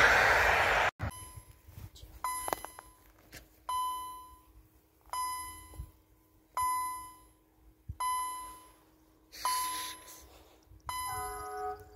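A passing train's rumble cuts off about a second in; then an electronic warning bell, of the kind used at level crossings, dings about every one and a half seconds, each ding a clear ringing tone that fades quickly. It signals an approaching train. A few other short tones briefly join in near the end.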